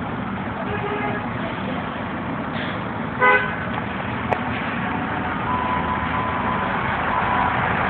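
City street traffic noise with one short vehicle horn honk about three seconds in.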